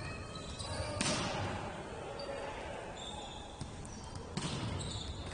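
Indoor ball game in a sports hall: a ball is struck hard twice, about a second in and again near the end, each hit ringing in the hall. Short high squeaks, typical of shoes on the court, run between the hits.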